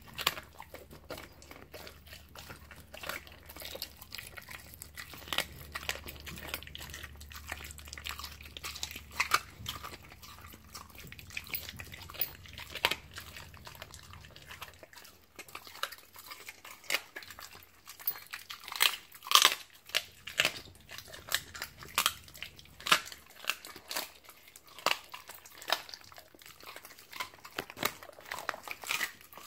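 Siberian husky chewing and crunching a raw chicken leg quarter, with irregular sharp crunches, often several a second.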